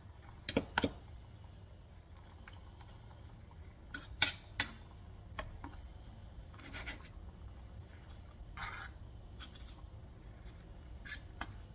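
Metal fork scraping and clinking against a frying pan as food is turned in it. A few sharp clinks stand out, the loudest two close together about four seconds in, with shorter scrapes in between.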